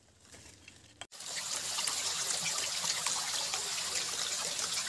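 Water of a small hillside stream trickling and splashing over rocks, a steady even hiss that starts suddenly about a second in after near quiet.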